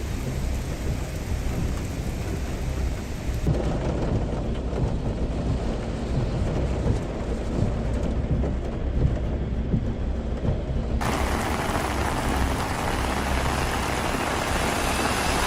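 Heavy rain pouring down, an even hiss over a steady low rumble. The sound changes abruptly twice, about three and a half seconds in and again about eleven seconds in, where the rain becomes brighter and hissier.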